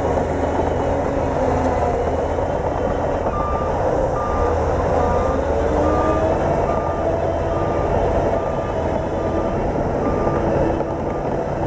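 Bulldozer's diesel engine running loudly under load while its reversing alarm beeps, a short high beep repeating a little more than once a second, starting a few seconds in.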